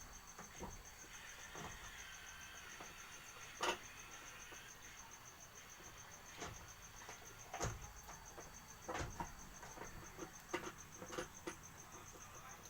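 Crickets chirping in a steady, even pulse, with scattered light knocks and clicks; the sharpest knock comes a little under four seconds in.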